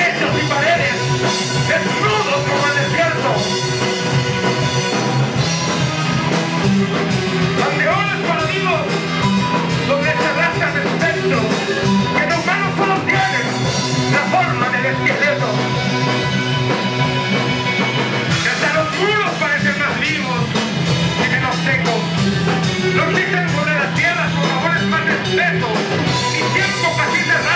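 Live instrumental rock from a band on stage: electric guitar and drum kit playing continuously, with a wavering melodic line over a dense sustained chord bed.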